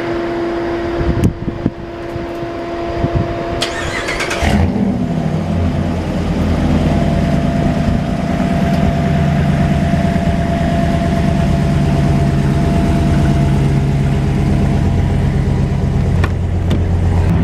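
A Ram 1500 pickup's engine being started by the key fob's remote start. After a few clicks, the starter cranks briefly about four seconds in, and the engine catches and settles into a steady idle.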